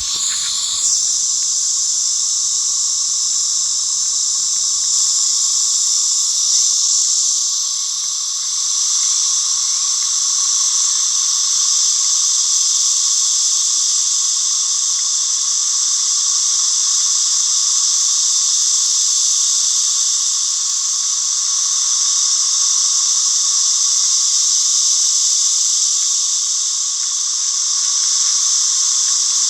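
A steady, unexplained whirring in the sky, heard with the continuous high drone of cicadas. It keeps an even pitch throughout and eases slightly in loudness a few times.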